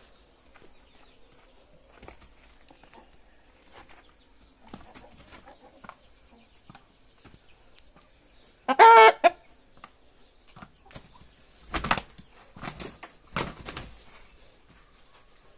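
Aseel-type gamecock defending its territory, facing down a person's foot. Near the middle it gives one loud call. A few seconds later come two short bursts of wing flapping about a second and a half apart as it lunges.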